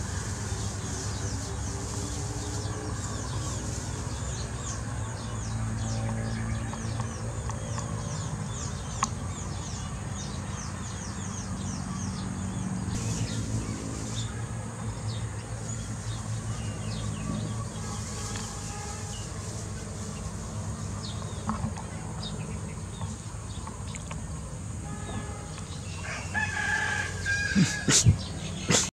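Farmyard bird sounds: many quick high chirps over a steady low hum, then a louder drawn-out fowl call near the end.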